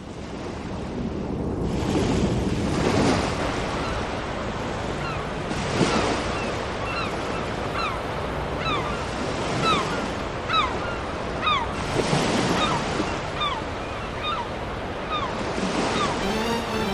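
Recorded seaside sound effect played over a PA system as the intro of a backing track: surf breaking in slow swells, with seagulls calling again and again from about five seconds in. The song's music starts right at the end.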